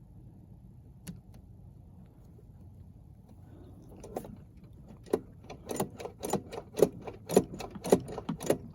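Hand tools and parts being worked on a generator's housing: a single click, then after a few quiet seconds a run of sharp clicks and knocks, about two a second, growing louder toward the end.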